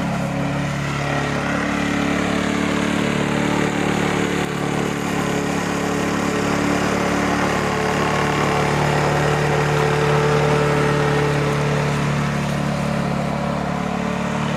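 Petrol lawn mower engine running steadily at even revs just after its carburettor was cleaned and blown out and its air filter serviced: it runs cleanly, its sound and revs judged good, a sign that the fuel mixture is now forming properly.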